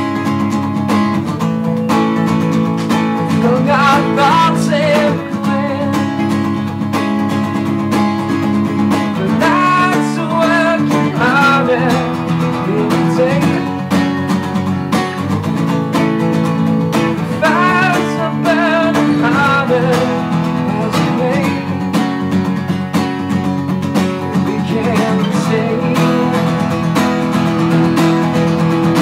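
Acoustic guitar strummed steadily, with a man singing a melody over it in phrases.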